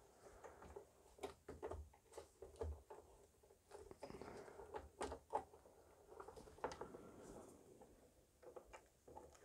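Faint, scattered small clicks and taps of hands working the screws out of a power supply's acrylic enclosure.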